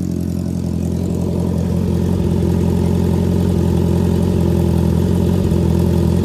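Honda CB650R's inline-four engine idling steadily through an aftermarket full exhaust system with a perforated muffler tip. It gives a deep, mellow bass tone, tamed so that it is not loud at idle.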